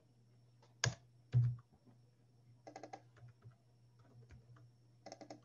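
Computer keyboard being typed on in short clusters of a few keystrokes, over a faint low hum. Near the start come a sharp click and then a soft low thump, both louder than the keystrokes.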